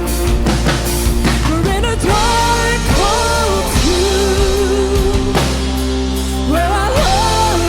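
A worship band plays a rock-style song with drum kit and a steady low bass. Over it runs a melody line that glides between held notes.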